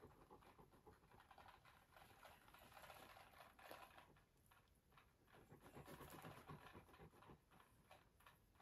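Faint, fast crunching and clicking of an African crested porcupine gnawing on raw pumpkin.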